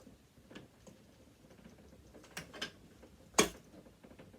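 Light metallic clicks and taps of hand tools and small parts being worked on a sewing machine, with one sharp, louder clack about three and a half seconds in.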